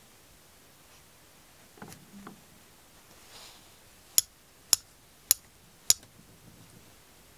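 Four sharp hammer blows, a little over half a second apart, on a punch set over a brass spoon blank in a metal die, doming the blank into the die's oval hollow. A couple of light handling knocks come before the blows.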